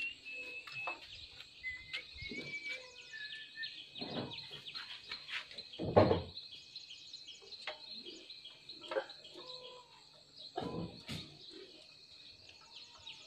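Small birds chirping over a steady high insect hiss, with scattered clicks and knocks and one loud thump about six seconds in; the tractor engine is not running.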